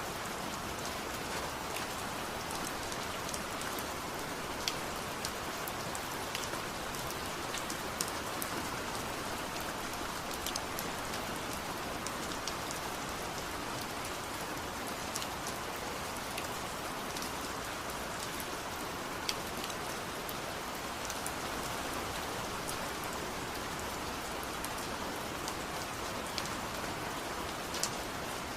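Steady rainfall, an even hiss with scattered individual drop ticks landing on surfaces nearby.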